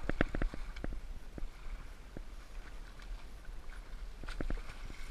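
A hooked striped bass thrashing and splashing at the water's surface beside a kayak. There is a quick run of sharp splashes and knocks in the first second and a few more later on.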